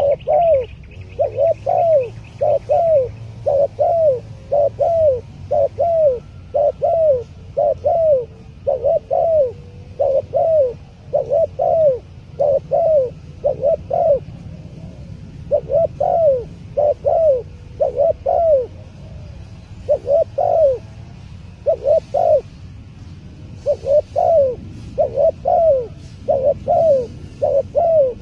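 Spotted dove (terkukur) cooing over and over, about one to two arched coos a second in runs with a few short breaks; the young bird is calling freely on its first time put out in the yard. Faint chirps from other small birds sound behind it.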